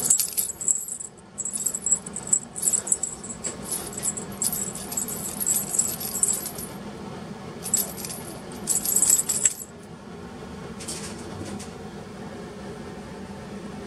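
Small bell in a plastic lattice-ball cat toy jingling in quick, uneven clusters as a kitten bats and paws at it. After a short break it jingles again, then stops about ten seconds in.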